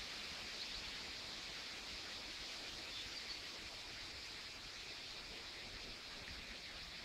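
Steady hiss of a shallow stream running over stones.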